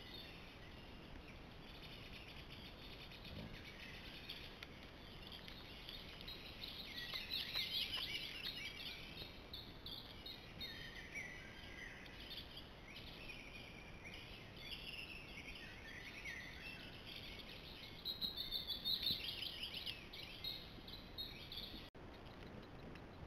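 Several songbirds singing in woodland over a steady hiss. The song swells twice, about a third of the way in and again near the end.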